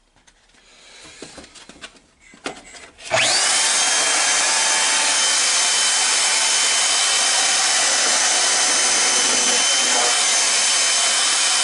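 Portable band saw in a table stand switched on after a few light clicks about three seconds in: its motor whine sweeps up as it spins up, then runs steady and loud, ready for rough-cutting a Kydex sheet.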